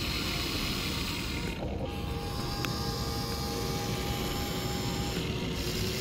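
A small motor whirring steadily over a hissing background, with a faint steady whine that sets in about two seconds in and stops about five seconds in.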